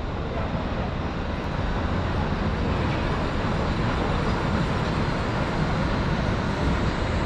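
Wuppertal Schwebebahn suspended railway car running: a steady rushing noise that slowly grows a little louder.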